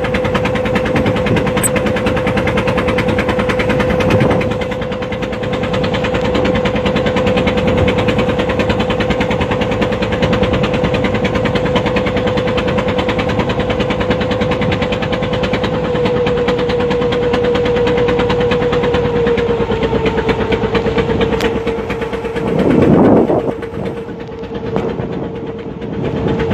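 An engine running steadily with a constant hum that drops slightly in pitch about two-thirds of the way through, with a brief louder swell near the end.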